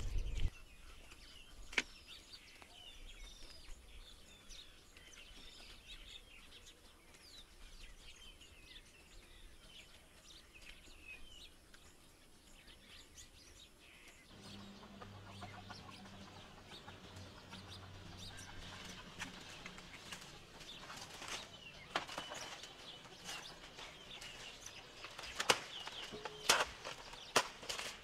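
Birds chirping, many short high calls, with scattered clicks and knocks joining in over the second half and a few sharper knocks near the end.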